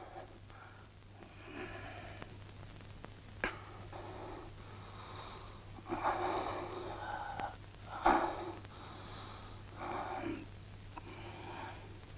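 A man breathing heavily with ragged, wheezing breaths every second or two, over a steady low hum from the old film soundtrack.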